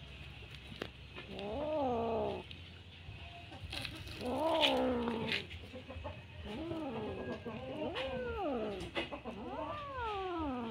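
Bengal kitten growl-yowling with a string clenched in its mouth, guarding it while it is tugged: about four drawn-out calls, each rising and then falling in pitch.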